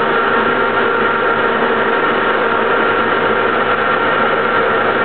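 Soviet 1K62 lathe running steadily at a low 20 rpm spindle speed while tapping an M24×1.5 thread into a nut: an even mechanical hum with steady whining tones from the drive.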